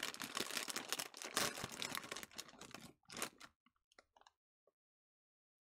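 Foil bag of Flamin' Hot Fritos crinkling and rustling as it is handled and pulled open, for about three seconds, then a brief last crackle.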